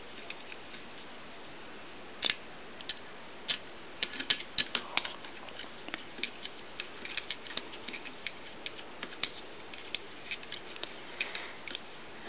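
Hex key clicking and ticking against metal as the quad rail's set screws are turned clockwise by hand and the key is repositioned: short sharp clicks at irregular intervals, a few louder ones about two seconds in and again around four to five seconds.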